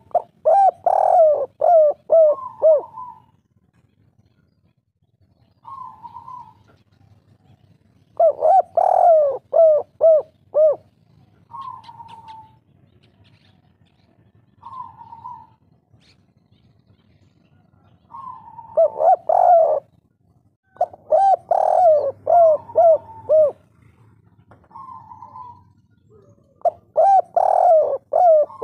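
Spotted dove cooing in repeated phrases: a soft, slightly higher opening note and then a quick run of louder, lower coos. There are about five full phrases, with single short notes in the pauses between them.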